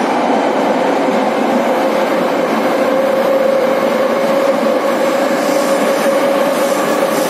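Moscow metro train running, heard from inside the carriage: a loud, steady rumble of wheels on rails with a whine that climbs slightly in pitch.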